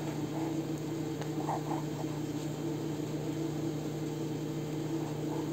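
Steady low hum with a few faint, soft rustles of paper being handled for gluing, about a second and a half in.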